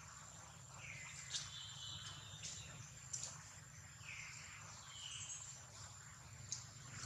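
Faint, steady, high-pitched insect drone, with a few short falling calls and some sharp clicks over it.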